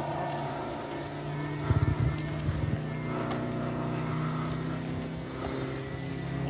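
Moki 400 five-cylinder radial engine of a half-scale Gee Bee R2 model airplane droning steadily in flight. There is a brief low rumble about two seconds in.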